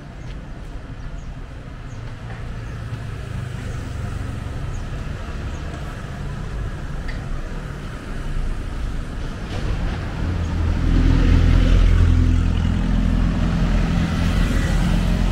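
Street traffic: a motor vehicle's engine grows steadily louder as it draws close, with a low engine note that is loudest from about ten seconds in.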